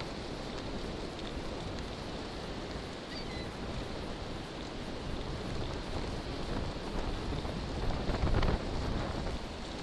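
Wind buffeting the microphone of a handlebar-mounted camera on a moving bicycle, a steady low rumbling rush over surf washing on the shore, with a stronger gust about eight seconds in.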